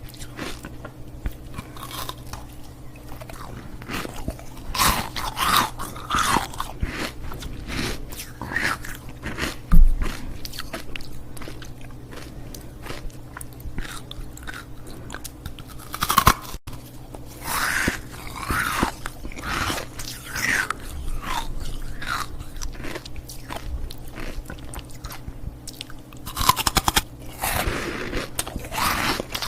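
Ice cubes being bitten and chewed close to the microphone: irregular sharp crunches coming in clusters, with a heavy bite about ten seconds in.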